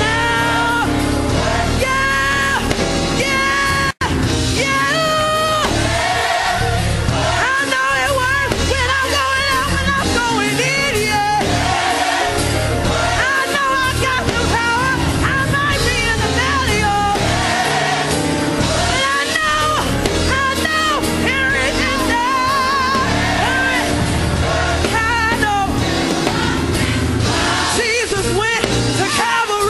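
Gospel choir singing live with instrumental accompaniment. The sound drops out for an instant about four seconds in.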